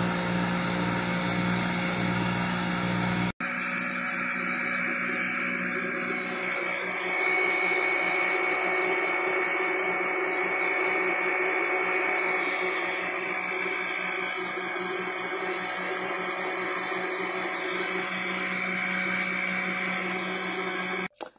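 Electric centrifugal juicer running steadily under load as it juices papaya, a motor hum with a high-pitched whine. It cuts out for an instant about three seconds in and stops abruptly just before the end.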